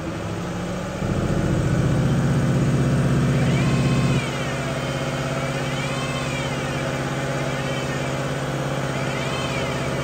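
Ford Mustang engine running, revved up for about three seconds and then settling back, with a whine from inside the five-speed manual transmission that glides up and down in pitch several times as the clutch pedal is worked. The whine tracks the bearing's speed, the sign of a worn bearing inside the transmission, such as the input shaft bearing, rather than a throwout bearing.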